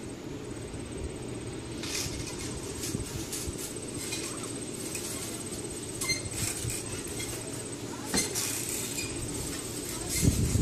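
Backyard background noise: a steady low rumble with a faint high-pitched whine that comes and goes, and a few light ticks.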